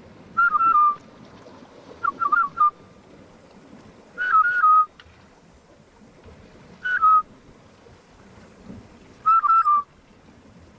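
A bird's short whistled call, wavering and then dropping to a lower note, given five times about two to three seconds apart.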